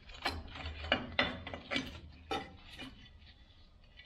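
Toyota FJ40 Land Cruiser drum brake shoes and their springs and hardware being worked off the backing plate by hand: an irregular run of metal clicks and scrapes that thins out after about two and a half seconds.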